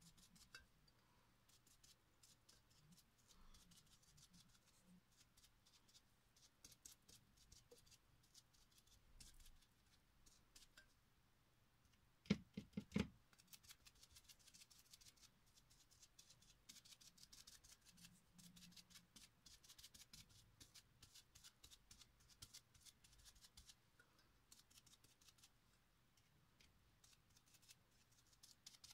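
Foam dauber dabbing paint onto a glass vase: a faint, rapid run of soft taps and clicks. About twelve seconds in comes a short cluster of about five louder knocks.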